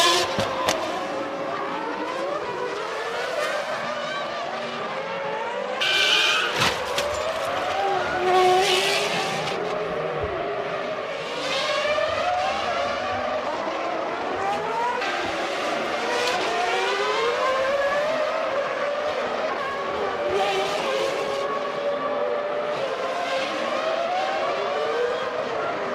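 Formula One cars' V10 engines revving up and down through gear changes as several cars go by one after another, each pass bringing a brief rush of noise.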